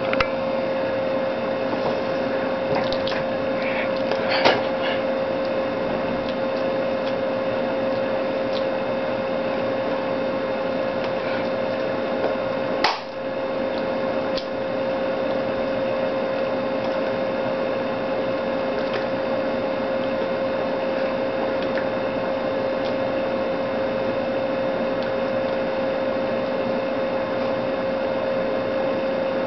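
Steady electrical hum: a constant mid-pitched whine over an even hiss, with no speech. A few faint clicks come a few seconds in, and a sharp click about thirteen seconds in.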